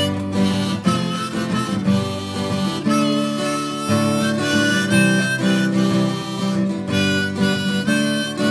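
Instrumental intro of an Italian folk-rock song: a harmonica plays held, wavering notes over strummed acoustic guitar.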